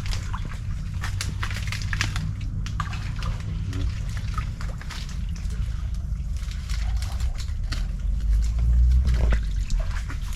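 Wet mud and shallow water sloshing and squelching as a mud-crab trap is handled and set, with scattered small clicks and knocks over a steady low rumble.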